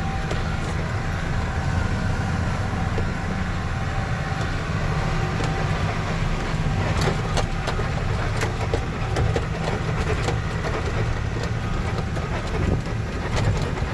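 Dump truck driving over rough ground, heard from inside the cab: the engine runs with a steady low rumble while the cab rattles and knocks often, more so in the second half, as the truck shakes.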